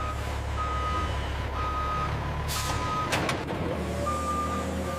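A truck's reversing alarm beeping about once a second over the low running of its engine, with a short hiss about two and a half seconds in.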